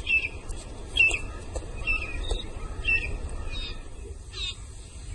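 Birds chirping in the background: short, high calls repeating roughly once a second, over faint outdoor ambience.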